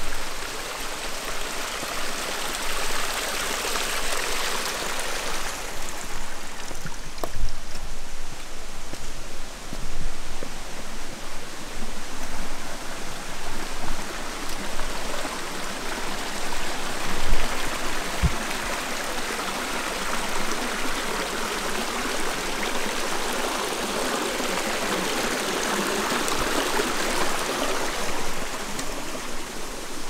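Rushing water of a stream, a steady hiss that swells and eases in level, with a few soft low thumps.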